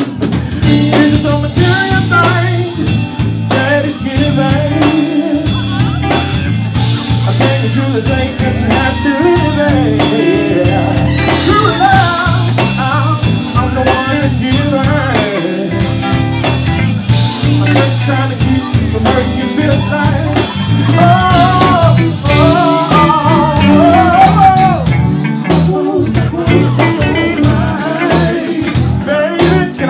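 Live blues band playing: a man singing over electric guitars and a drum kit, with a strong bass line.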